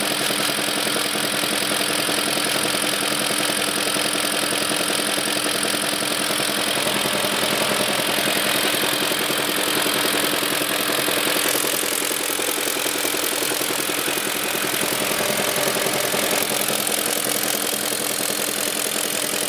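BMW E38 740's M62 V8 engine running steadily at idle with a fast, even knock from the engine.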